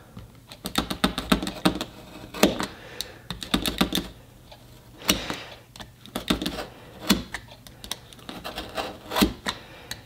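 Box cutter blade being drawn through a belt against a plywood board in repeated short strokes, making an irregular run of clicks and scrapes.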